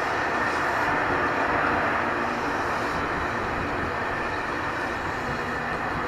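JR Kyushu 813 series electric train running past with a steady noise.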